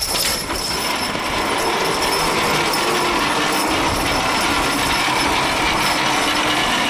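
A draft horse team hauling a 3,200 lb load: a loud, steady grinding rumble starts suddenly as the load begins to move and keeps going, with faint wavering shouts over it.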